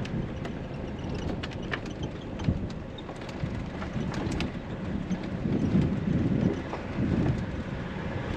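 A vehicle driving: a steady low rumble with many scattered clicks and rattles, and louder heavier bumps about five to seven seconds in.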